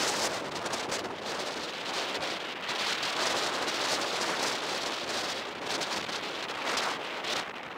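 Steady rushing hiss of air and road noise while riding a bicycle along a paved road, swelling and easing a little without a break.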